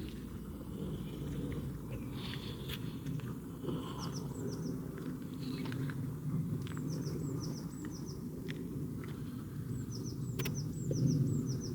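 Outdoor ambience: small birds chirping in short runs of quick falling notes over a steady low rumble, with scattered clicks and taps.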